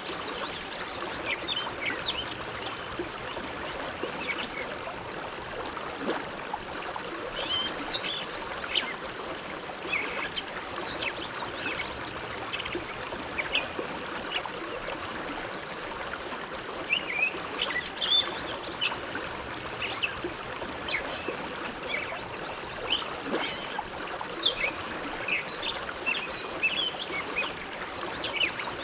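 The Bow River flowing: a steady rush of water with many small splashes and gurgles running through it.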